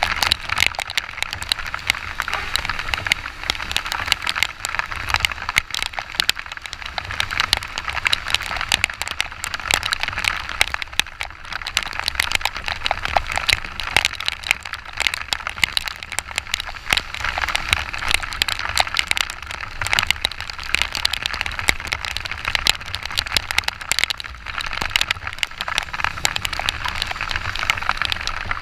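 Heavy rain pelting a camera on a moving Yamaha XTZ 125 motorcycle: a dense, irregular crackle of drops hitting, over a steady low rumble of wind and the bike.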